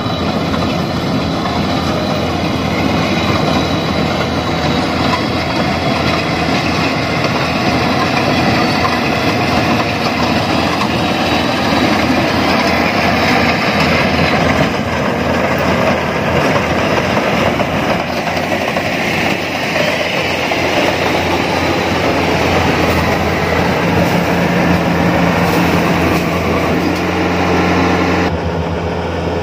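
Rice combine harvester running as it cuts standing rice: a loud, steady drone of engine and machinery. Near the end the sound changes abruptly to a lower, steadier hum.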